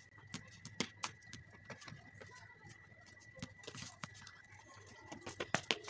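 Scattered sharp knocks and taps from a bat-and-ball game on a concrete roof: the ball bouncing and being struck, a couple of knocks about a second in and a quick pair near the end. A faint steady high whine runs underneath.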